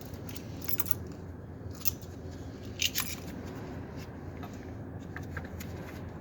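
A few light metallic clicks and clinks from hard parts being handled, the loudest about three seconds in, over a steady low hum.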